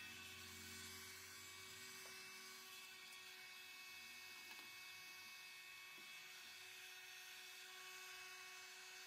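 Faint steady electrical hum with a few constant tones.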